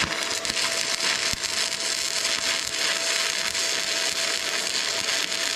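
Small inverter arc welder laying a weld: a steady crackling, sizzling arc with a thin, steady whine underneath.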